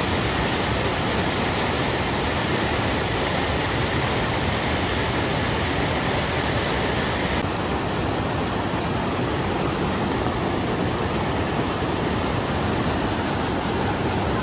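Fast mountain river rapids rushing over boulders: a loud, steady wash of white water. The upper hiss dulls slightly about seven seconds in.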